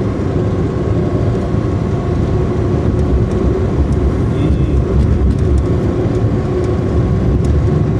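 Steady noise of a Daewoo Matiz being driven, heard from inside the cabin: the engine running and the tyres rumbling on the road.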